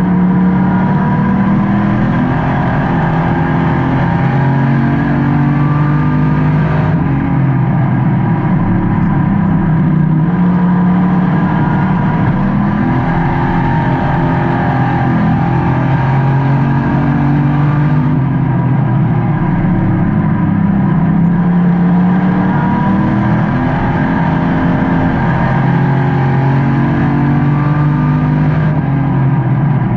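Race car engine heard from inside the car at racing speed, its pitch climbing and falling in repeated cycles as the throttle opens and lifts lap after lap.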